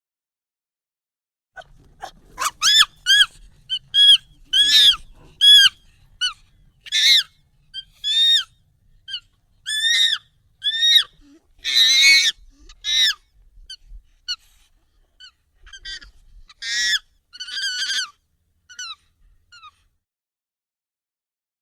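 Monkey calls, sped up and pitched up nightcore-style: a run of short, high-pitched calls, about one a second, that begins a moment in and thins out toward the end.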